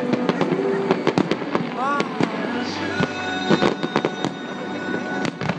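Aerial fireworks bursting in rapid succession: many sharp bangs and crackles, one after another with no pause.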